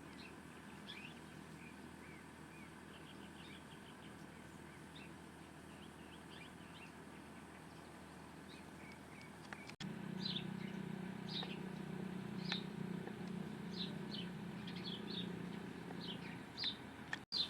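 Small birds chirping in short, high, quick notes, faint at first and louder after a cut about ten seconds in. A low steady hum runs underneath the louder chirping.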